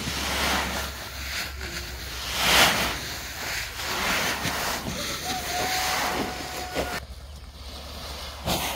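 Paddy rice grains pouring out of a woven plastic sack onto a tarpaulin, with the sack rustling and crinkling as it is tipped and shaken, in uneven surges of hissing noise, the strongest about two and a half seconds in.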